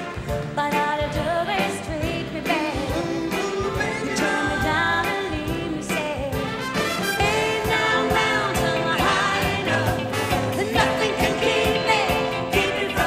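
A woman singing a pop-soul tune into a microphone, backed by a big band with a steady beat.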